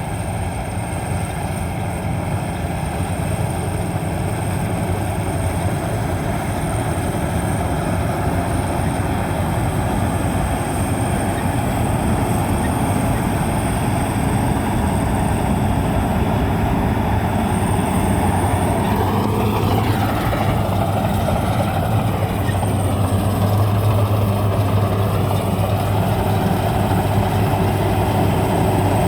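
Maxxi Bimo 102 combine harvester running steadily as it harvests rice, a continuous machine drone that grows slowly louder.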